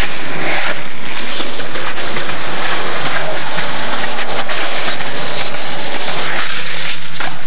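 Skateboard wheels rolling on concrete, a loud steady rumble close to the microphone, with a few sharp knocks from the board.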